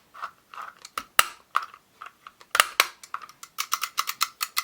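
Small hard plastic clicks from handling plastic toy figures. They are irregular at first, then become a quick regular clicking of about five a second near the end.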